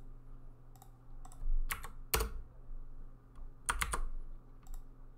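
Computer keyboard and mouse in use: a few separate key presses and clicks spread out, the loudest about two seconds in and a quick cluster near four seconds.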